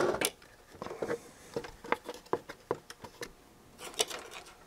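A string of irregular small clicks and taps from electronic parts being handled on a workbench: a plastic instrument front panel and circuit boards being moved and set down.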